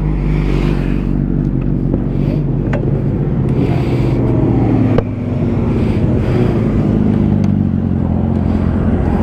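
Sport motorcycle engine idling steadily, with a single sharp click about five seconds in.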